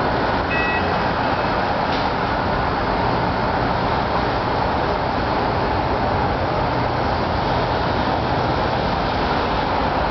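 Steady, even rumble of motor traffic and heavy vehicles, with a brief high beep about half a second in.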